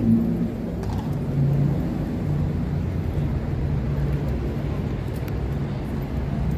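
Steady low rumble of road traffic with a faint engine hum.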